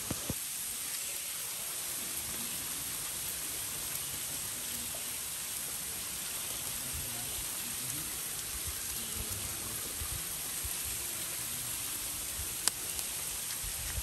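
Steady rushing hiss of river water and a waterfall, with one sharp click near the end.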